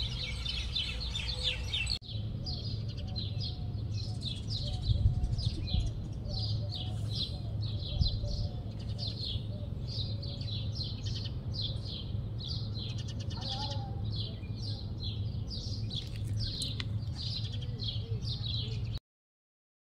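Small birds chirping continuously: short, high chirps repeating several times a second, over a low steady rumble. The sound cuts off abruptly near the end.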